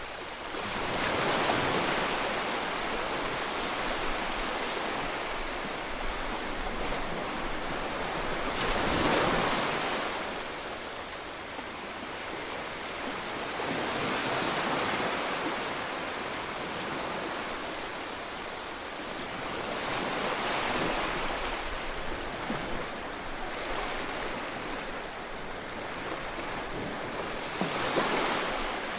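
Small waves breaking and washing up a sandy beach, the surf swelling and easing in surges every six to eight seconds.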